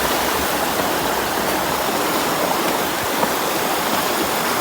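River water running steadily: a constant, even rush.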